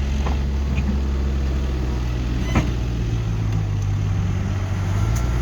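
Diesel engines of a wheel loader and a backhoe running steadily, with one sharp knock about two and a half seconds in.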